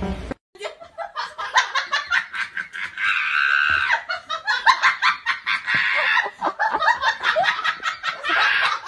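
A person laughing hard, in quick repeated gasps of laughter.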